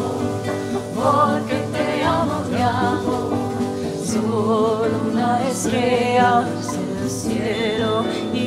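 Live acoustic song: voices singing a wavering melody over strummed acoustic guitar and a djembe.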